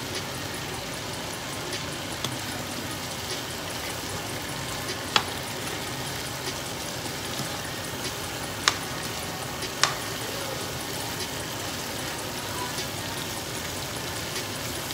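Beef sizzling steadily in a hot skillet while it is stirred with a metal spoon, with a few sharp clinks of the spoon against the pan.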